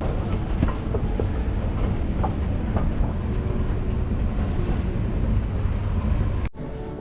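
A moving vehicle, heard from inside: a steady heavy rumble with scattered clicks and rattles. It cuts off abruptly near the end, and quieter music with held tones follows.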